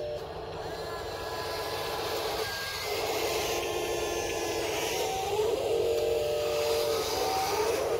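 Huina 583 RC wheel loader's electric drive motor and gears whining as it drives over gravel, the pitch dipping and rising a few times as it changes speed.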